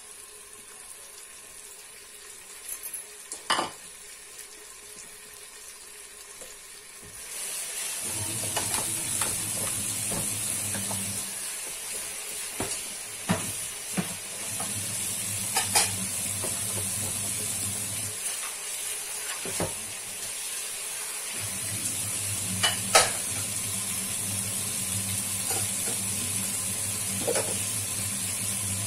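Vegetables, onion and diced turkey frying in an electric multicooker pot. The sizzle is faint, then grows louder about seven seconds in, with scattered pops and crackles, as the pot comes back up to heat after cold vegetables were added. A low hum runs beneath it from then on and cuts out twice.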